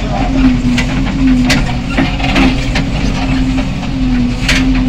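JCB 3DX backhoe loader's diesel engine running steadily while the rear backhoe arm works, with a wavering hum and a few short sharp clicks or knocks.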